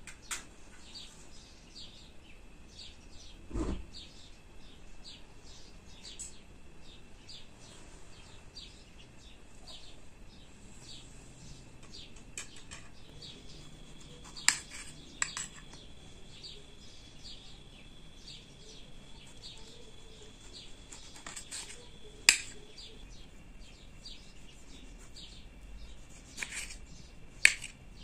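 Knife clicking sharply against a plate a few times as tomatoes are sliced, over steady chirping of small birds. A dull thump about four seconds in.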